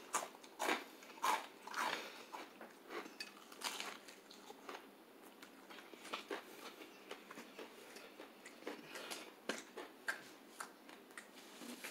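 Chewing and biting of crispy fried food close to the microphone: many short, crisp crunches, denser in the first few seconds and again near the end.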